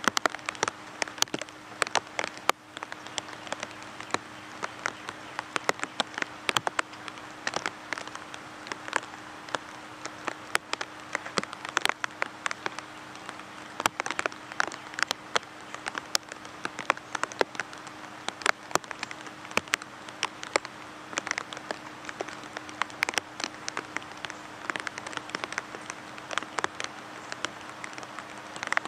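Steady rain falling on leaves, an even hiss dotted with many sharp, close drop taps at irregular moments.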